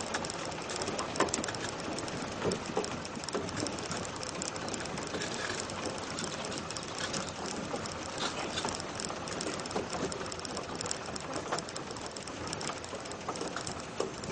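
Off-road vehicle driving along a rough, rutted dirt track: steady running and rattling noise with frequent short knocks and clatters as it goes over the bumps.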